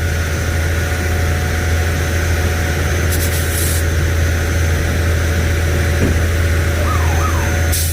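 Concrete boom pump truck's diesel engine running steadily at working speed while the pump primes, with two short hissing bursts, one about three seconds in and one near the end.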